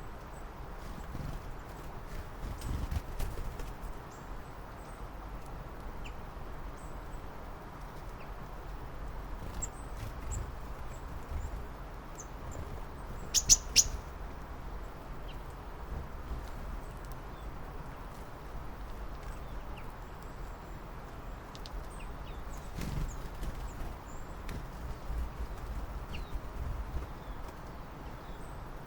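Small birds chirping outdoors: scattered short, high calls, with a louder quick run of chirps about halfway through, over a steady background hiss and low rumble.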